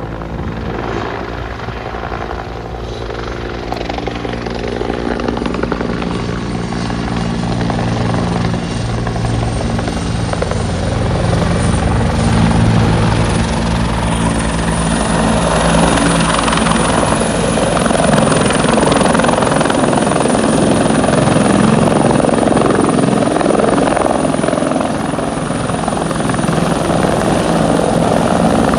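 Los Angeles County Fire Department turbine helicopter coming in to land, its rotor beat growing louder over the first ten seconds or so and then holding steady as it hovers and settles. A high turbine whine runs throughout.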